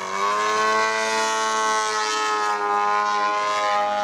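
Engine and propeller of a 3D aerobatic radio-controlled model airplane, rising in pitch at the start and then held at a steady, loud high pitch as it flies close by.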